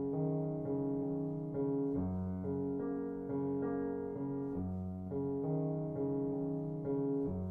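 Background piano music: a keyboard tune of held notes and chords that change about every half second.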